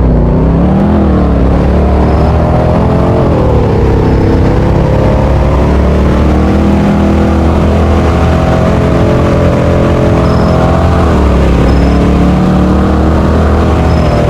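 Fire siren sounding, its held tone slowly dipping and rising in pitch over a low rumble.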